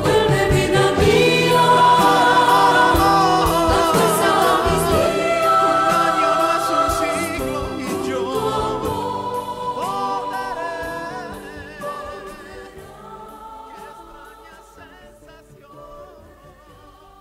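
Outro of a 1975 Spanish-language pop ballad: a choir singing sustained notes over the band with a steady beat, the whole recording fading out over the second half.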